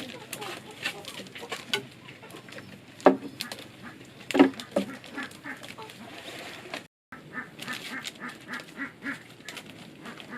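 Farm waterfowl calling, two loud honking calls about three and four and a half seconds in, then a run of quick repeated calls after a brief break about seven seconds in.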